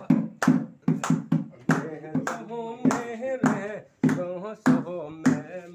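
Rhythmic hand claps, about one every 0.6 seconds, with a voice singing along through the middle of the stretch.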